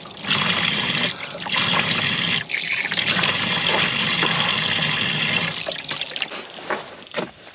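Water pouring from a handheld camp shower nozzle and splashing as a man washes his face with cupped hands. The splashing eases off near the end.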